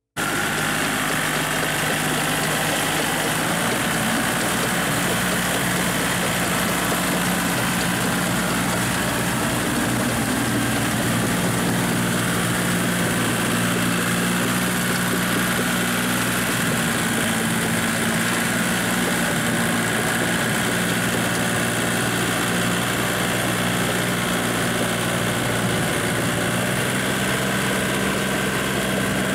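Small Kubota tractor's diesel engine running steadily under load as it tows a rotary tiller through flooded paddy mud; the engine note cuts in suddenly at the start and shifts slightly in pitch now and then.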